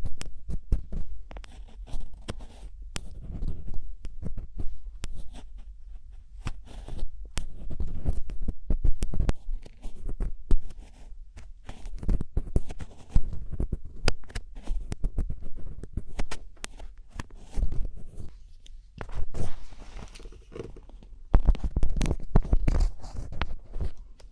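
ASMR scratching sounds right at the microphone: irregular, dense scrapes and clicks with low, thudding handling bumps in between.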